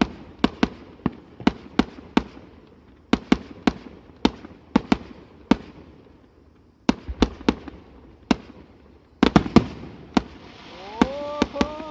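Aerial fireworks bursting: an irregular run of sharp bangs, sometimes two or three in quick succession, with short lulls between volleys.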